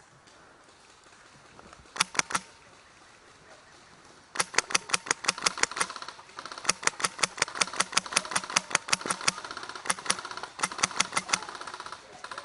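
Airsoft rifle firing: a quick burst of three shots about two seconds in, then long rapid full-auto strings broken by two short pauses.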